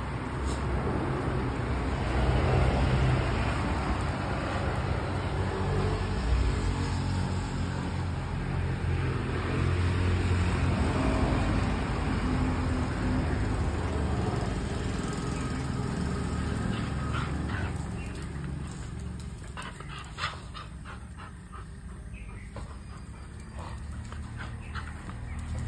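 Two dogs play-fighting, with dog sounds over a low steady rumble. A run of short sharp clicks comes in the last few seconds as the rumble eases.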